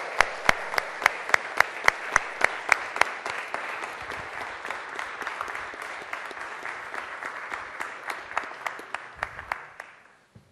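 Audience applauding, with one louder set of evenly paced claps standing out above the rest. The applause slowly dies away and stops about ten seconds in.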